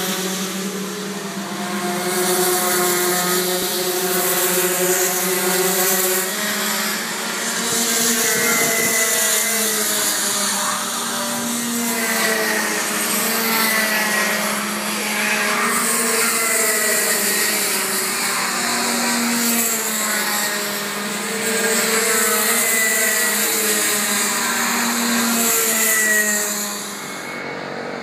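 Several racing kart engines lapping, their high-pitched notes repeatedly rising as the karts accelerate out of the corners and falling as they lift, with several engines overlapping.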